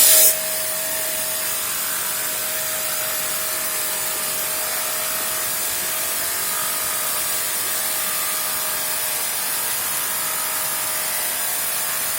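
Electric table tile-and-stone cutting saw running steadily: a constant hiss with a steady whine, unchanged throughout.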